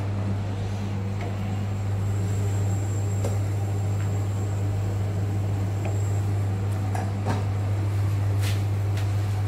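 Steady low electrical hum of a motor, with a broad hiss beneath it and a few light clicks and knocks.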